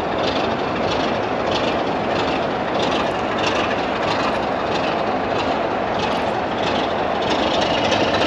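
Diesel-hauled passenger train pulling away from a station, heard from a carriage: a steady loud rumble from the locomotive and running gear, with faint regular clicks about twice a second. It grows slightly louder near the end.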